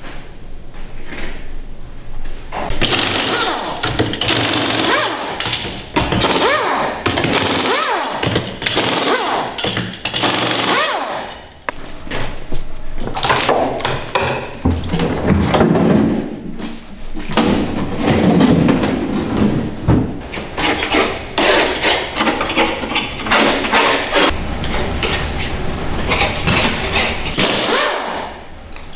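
Hand tools working on cast bathtubs: metal bars and scrapers scraping and knocking against a cured cultured-marble tub and its mold, with hard excess material chipping and breaking away in dense, irregular strokes.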